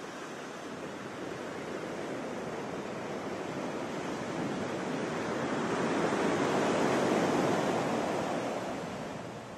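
Ocean surf breaking and washing up a sandy beach, a steady rush that swells to its loudest about two-thirds of the way through and then fades.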